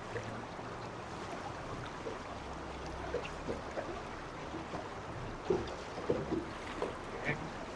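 Water lapping and gurgling against a boat's hull on a river, over a low steady hum that drops in pitch a little over two seconds in. The gurgles come thicker in the second half.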